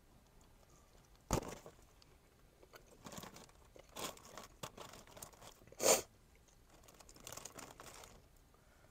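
Crispy fried hot chicken being bitten into and chewed, with crunching and tearing of the fried crust: a sharp crunch a little over a second in, smaller crackles, and a louder crunch near six seconds.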